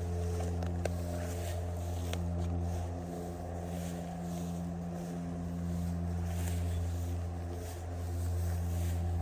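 Steady low hum of a motor running at constant speed, with a few faint clicks in the first second.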